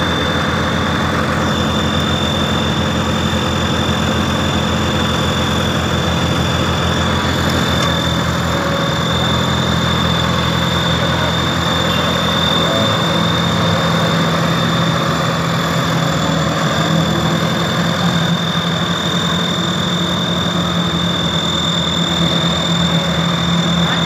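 Diesel engine of a tandem steel-drum road roller running steadily, its note dropping a little about eight seconds in, with a steady high-pitched whine above it.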